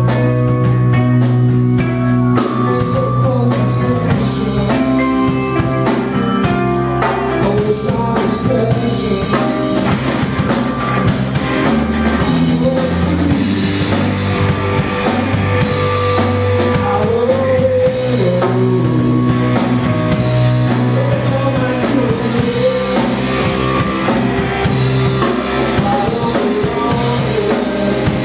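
Live rock band playing: electric guitar, bass guitar and drum kit, steady and loud throughout.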